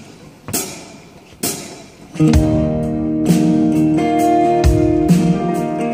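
Live acoustic band starting a song. Two sharp taps come in the first second and a half, then acoustic guitars strum full chords from about two seconds in, with a low thump on the beat.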